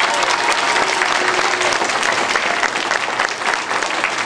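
An audience of schoolchildren applauding, with many hands clapping steadily at once.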